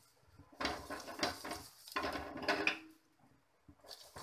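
Metal spatula scraping and pressing a paratha on a non-stick pan as it is flipped, in two stretches about a second long each.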